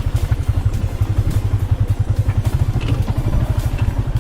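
Motorbike engine running with a rapid low pulse, with scattered knocks and rattles as the bike rides over a rough, broken track.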